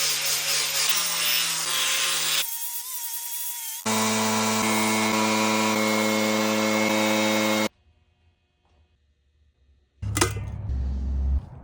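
Power carving tools running in short cut-together bursts, a steady machine whine with a clear pitch that changes abruptly between cuts. It drops out for about two seconds, then a loud low thump and hiss come near the end.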